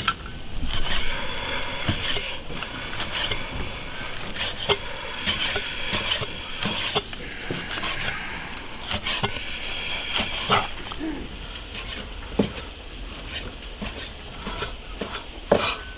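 Chinese cleaver slicing cooked beef on a thick wooden chopping block: the blade knocks on the wood with each cut, in an irregular run of sharp chops.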